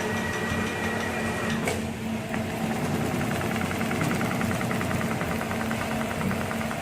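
HEMS 250 CNC frame-type programmable pattern sewing machine running with a steady hum. A thin whine sounds for the first second and a half and ends with a click. From about three seconds in there is rapid, even ticking as the machine stitches.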